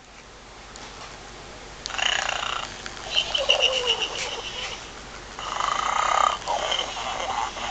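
GUND Arnold plush toy pig playing recorded pig noises through its small speaker, in three bursts, one with a falling squeal-like tone.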